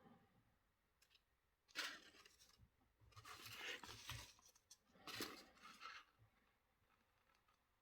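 A sheet of paper rustling and crinkling as it is folded and creased by hand, in three short bursts.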